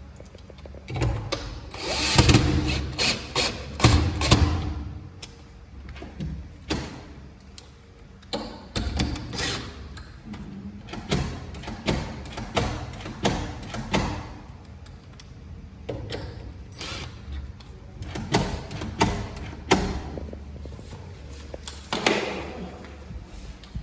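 Irregular knocks, taps and clicks of tools and lock parts being handled and fitted into an aluminium door, with a few short noisy bursts.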